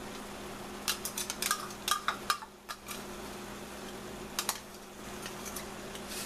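Kitchenware clinking and scraping as a ceramic mug of ketchup sauce is tipped and scraped out against a stainless steel saucepan: a quick run of clinks about a second in, and a few more just past four seconds, over a steady low hum.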